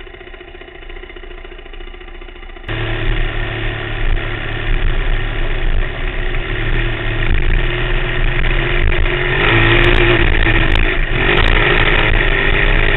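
Off-road vehicle engine running low and quiet, then the throttle opens sharply about three seconds in and it runs hard under load while riding across sand, getting louder again about two-thirds of the way through.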